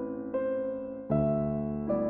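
Background music: a soft electric piano plays slow held chords, a new chord about every three-quarters of a second.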